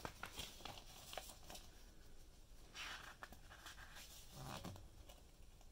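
Pages of a paper instruction booklet being flipped through by hand: a quick run of faint flicks in the first second or so, then a longer, soft rustle as a page is turned about three seconds in.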